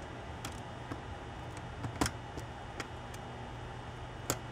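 Small clicks and taps of plastic case panels and small metal nuts being handled and fitted together by hand: a scattering of separate clicks, the sharpest about two seconds in.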